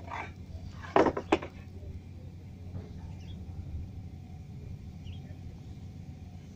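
Two sharp knocks about a third of a second apart, from a worker handling plywood boards while marking a cut, over a steady low rumble.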